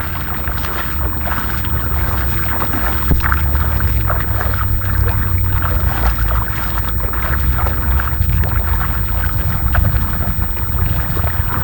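Footsteps sloshing and splashing through shallow tidal water, over a steady low rumble of wind on the microphone.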